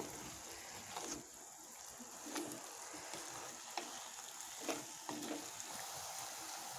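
A ladle stirring banana flower into a hot masala gravy in a kadai. The gravy sizzles steadily, and the ladle knocks and scrapes against the pan a few times.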